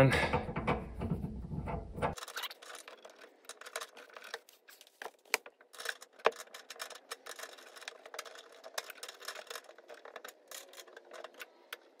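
Faint, irregular clicks and scrapes of pliers gripping and turning a threaded nut on a water heater's outlet fitting as it is tightened.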